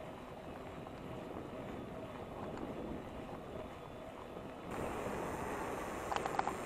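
Wind rushing over the microphone, with road noise, while riding a Carrera Vulcan electric bike; the hiss brightens a little past the middle, and a few sharp ticks come in near the end.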